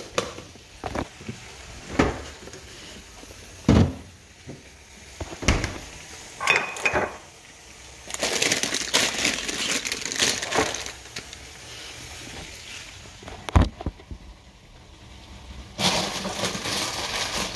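Kitchen handling noises: scattered knocks and clinks of glass jars, lids and a pot on the stove and counter, then a stretch of hissing from a pot of water at a rolling boil. A steady hiss starts suddenly near the end.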